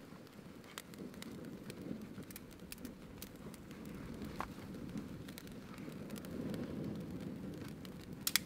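Small fire of dry twig tinder catching from a fire-starter plug: a low rush of flame that grows louder as it takes hold, with scattered sharp crackles.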